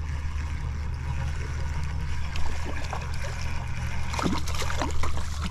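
A hooked crappie splashing lightly at the water's surface as it is reeled toward the bank on a light spinning rod, with a few stronger splashes about four and five seconds in. A steady low rumble runs underneath.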